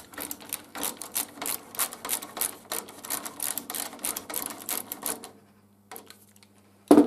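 Ratchet screwdriver clicking rapidly as it spins M6 Allen bolts into a steel bracket, for about five seconds. Near the end there is a single loud knock.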